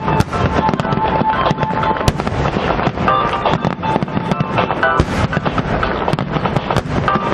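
Aerial fireworks going off in a dense, continuous barrage of rapid bangs and crackles.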